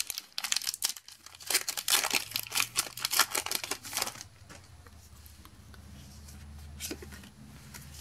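Foil booster pack wrapper being torn open and crinkled in the hands, a dense crackle that stops about four seconds in. After that only faint handling of the trading cards.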